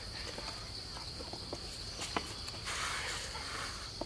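Insects droning in a steady high pitch, with a few light clicks and a brief rustle about three seconds in.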